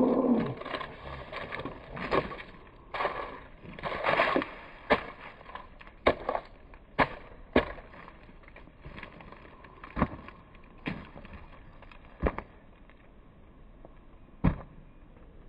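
A series of irregular sharp knocks and clatters, over a low rustling noise, busiest in the first five seconds and sparser after.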